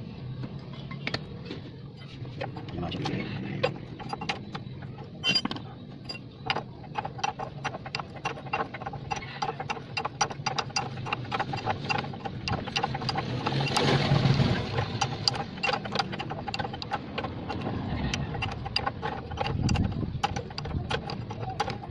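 Steel wrench clicking rapidly as a rusty castle nut is turned off a tie-rod end stud, with a sharp metallic click on each short swing.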